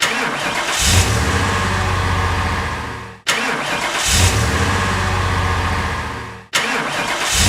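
Car engine starting: a short crank, then the engine catches with a rev just under a second in and settles to running before dying away. The same start plays three times, about every three and a quarter seconds.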